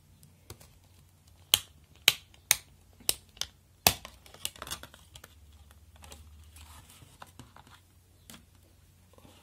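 Sharp plastic clicks of a CD being pressed and pried off the spindle hub of its clear plastic jewel-case tray: six loud clicks in quick succession, then softer ticks and light handling as the disc comes free.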